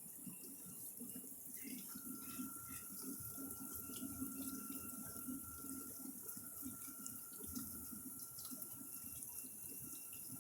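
Dishwasher running a wash cycle, very quiet: faint water spraying and splashing inside the tub over a low motor hum. A thin steady whine joins about two seconds in.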